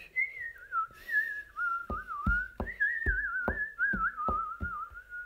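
Someone whistling a slow, wandering melody with a wavering pitch. About two seconds in, a steady beat of low thumps joins it, two to three a second.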